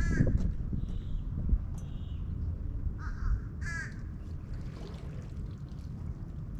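A crow cawing several times, short harsh calls, the loudest right at the start and about four seconds in, over a low rumble of wind on the microphone.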